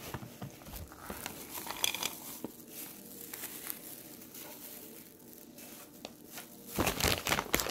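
Trail mix pieces dropping with small clicks into a clear plastic cup, with crinkling of plastic packaging; the crinkling gets louder near the end.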